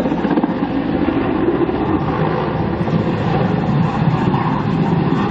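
Mil Mi-8 helicopter in flight: the steady rumble of its rotor and twin turbine engines.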